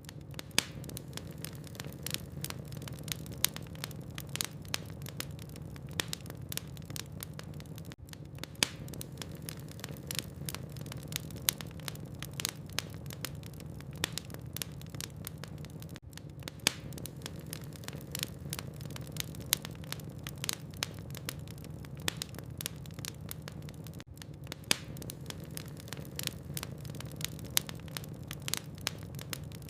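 Wood logs burning in a fireplace, crackling with many sharp pops and snaps over a steady low rumble. The same stretch repeats about every eight seconds.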